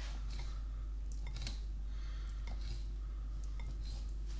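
Knife slicing through a skinned fish fillet on a wooden chopping board, giving a few faint taps and cutting sounds over a steady low hum.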